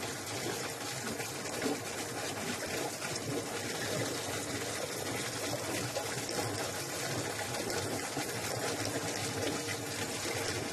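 Water running steadily into an outdoor fish tank, an even splashing hiss from the tank's water supply.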